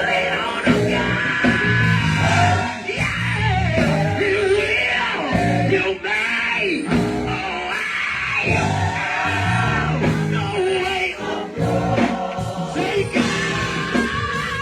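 Live gospel choir singing with a full band, a lead singer's voice over the choir and instruments.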